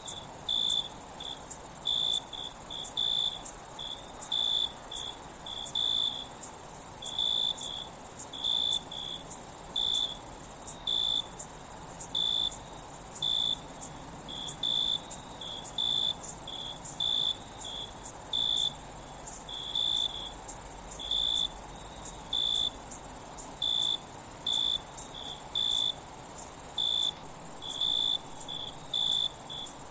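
Night insect chorus: a steady, very high-pitched insect trill, over which crickets give short chirps at an uneven pace of about one to two a second.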